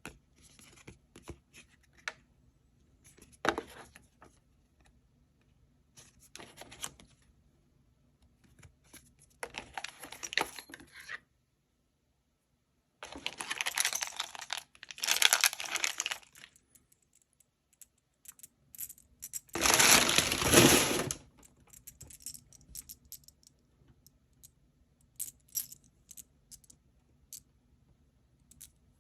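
Metallic clicking and clinking from handling the aluminum Gear Storm gear fidget, with several short bursts of rattling, the loudest about twenty seconds in.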